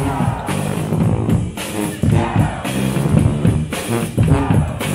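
College pep band playing, sousaphones carrying a bass line under drums.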